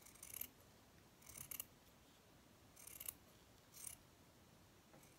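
Scissors snipping through craft felt: four short, faint cuts about a second apart.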